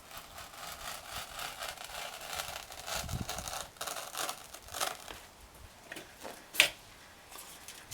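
A blade scraping in many short strokes, scoring the outline of a slot to be cut in a dash panel, with a sharp click about six and a half seconds in.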